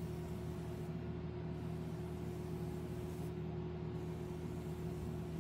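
Room tone: a steady low hum with no other distinct sound.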